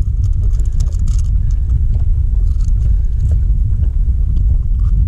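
Boat motor running with a steady low rumble, with a few brief clicks about a second in.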